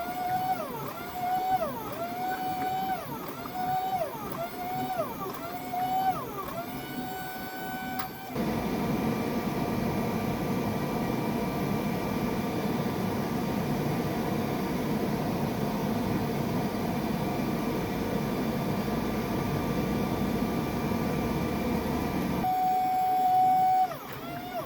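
Workshop power tools on steel: an electric motor whose pitch dips and climbs back over and over, roughly once every 0.7 s, as it is loaded and unloaded, then a sudden change to a steady, even roar for about fourteen seconds, after which the motor tone returns near the end.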